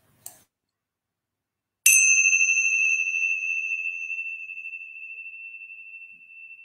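Small hand cymbals (tingsha) struck together once about two seconds in, leaving a clear, high ring that slowly fades. A faint short click comes just before.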